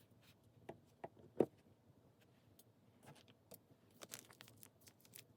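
Quiet handling noises of art tools and materials: scattered small clicks and taps, with one sharper click about a second and a half in and a few quick ones near the end.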